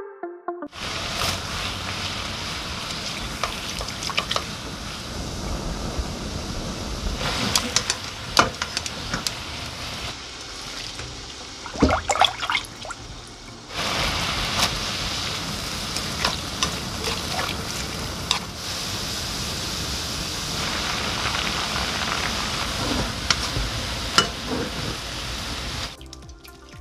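Water running steadily, as from a kitchen tap, with scattered knocks and clicks of handling. The flow drops off about ten seconds in and comes back strongly around fourteen seconds.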